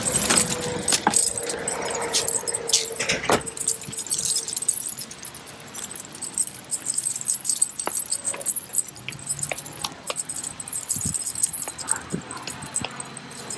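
Metal tags and leash hardware on two Cavalier King Charles spaniels' harnesses and collars jingling as the dogs move on leashes, with many small clicks and rattles.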